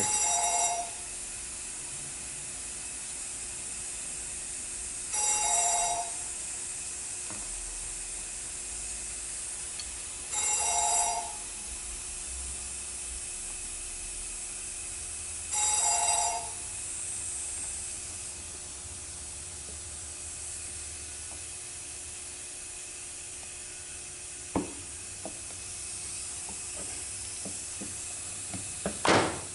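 A telephone ringing four times, each ring about a second long and about five seconds apart, over a steady hiss. A few light clicks near the end.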